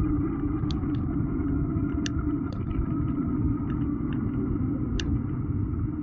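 Steady low rumble of wind and rolling noise from a moving bicycle, with a few sharp ticks scattered through.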